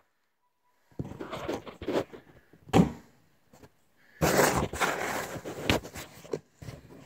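Phone handled close to its microphone: about a second of dead silence, then irregular rustling and scraping with scattered knocks, one sharp knock about three seconds in, and a dense rubbing noise a little past four seconds.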